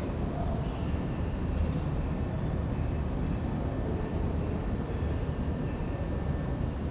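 Steady low rumble of background noise with a faint hiss above it, and no distinct events.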